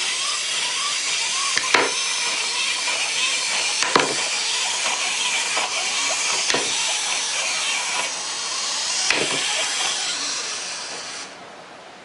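A steady hissing noise with a sharp pop every one to two seconds, fading out near the end.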